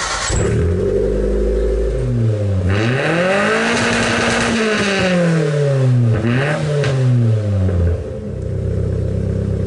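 Mitsubishi Mirage 1.5 L 4G15 four-cylinder engine running through its original exhaust. It runs steadily, then is revved up and back down twice, and settles again near the end.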